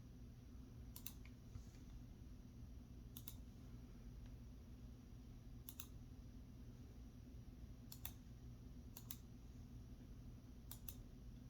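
Faint, sharp clicks, about six of them at irregular intervals a second or two apart, several coming as quick double clicks, over a low steady hum.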